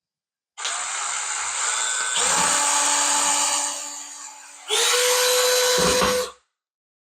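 Power drill running in two spells into the wall, one about four seconds long and a shorter, louder one near the end, each with a steady whine: making a starting hole for a towel bar bracket screw.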